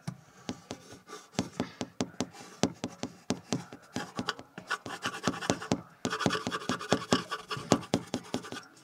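Pencil scratching on paper in rapid back-and-forth strokes, shading in a drawing, several strokes a second.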